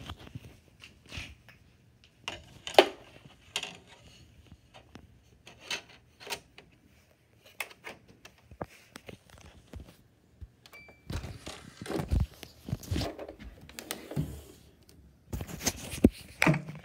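Scattered knocks, clicks and rustles of objects being picked up and moved about, busier in the last few seconds, with one short high beep a little past the middle.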